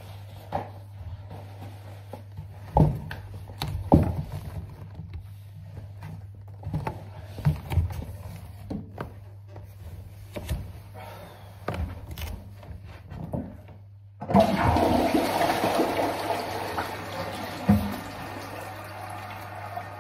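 Scattered knocks and clicks over a steady low hum, then about 14 seconds in a toilet is flushed: a sudden loud rush of water close by that slowly eases off.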